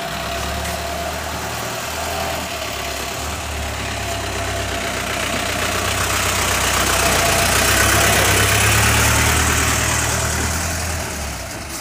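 A motor vehicle's engine running close by with a steady low rumble. It grows louder to a peak about eight seconds in, then drops away near the end.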